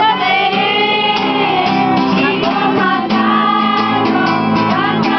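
A group of voices singing a song over music, with held, steady notes.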